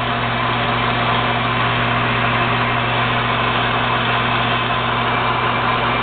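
TURNPRO 14 x 40 inch metal lathe running steadily under power: a constant low motor hum over an even mechanical whir.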